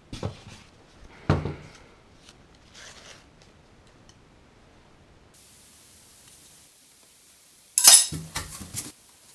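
Two thin aluminium struts clinking and rattling against each other as they are handled, in a loud bright cluster of clinks near the end. Before it come a couple of sharp knocks of handling in a cardboard box.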